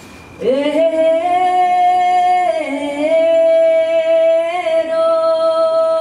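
A voice singing one long sustained note that swoops up into pitch about half a second in, holds, and dips briefly around the middle before settling again.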